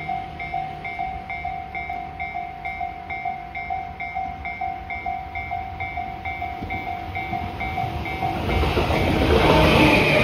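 Japanese level-crossing warning bell dinging steadily at about two to three strikes a second. About eight seconds in it is overtaken by the rising rush and rumble of a Tobu 10030-type electric train passing close by.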